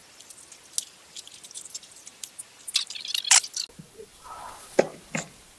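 Scattered small clicks, taps and scrapes of hands fitting an LED light strip into the metal channel of a billiard light frame, busiest around three seconds in, with two sharper knocks near the end.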